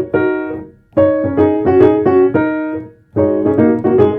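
Piano playing a short phrase of about seven notes, repeated with a brief gap between each one. The notes follow the rhythm of the spoken line "I'm starting to understand".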